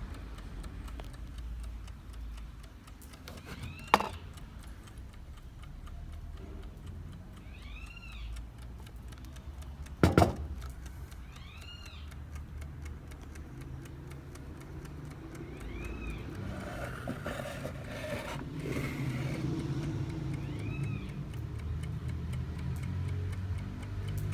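Junghans cuckoo alarm clock ticking over a steady low rumble. Two sharp clicks sound about four seconds in and about ten seconds in, the second one the loudest. A short high chirp recurs about every four seconds.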